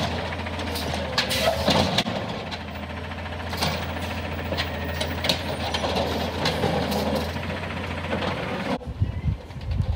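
Automated side-loader garbage truck idling with a steady low engine hum, with clanks and rattles from its grabber arm as it works the curbside cart. About nine seconds in the hum cuts off and gives way to irregular thumps.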